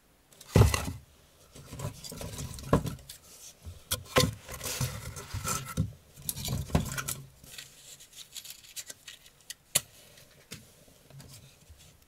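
Kindling and birch bark being laid into the firebox of a brick wood stove: a heavy knock about half a second in, then a run of wooden knocks, clatter and rustling that thins to scattered clicks after about seven seconds.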